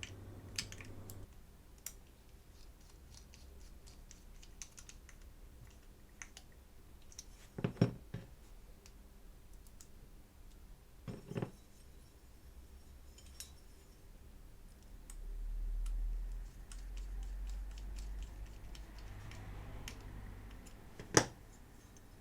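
Small hand tools clicking and scraping on a diecast metal toy car part while a screw thread is being tapped, with a few sharper knocks about eight and eleven seconds in and one near the end.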